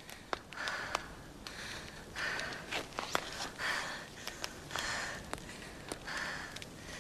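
Heavy breathing, a breath roughly every second and a half, over the sharp pops and crackles of a wood campfire.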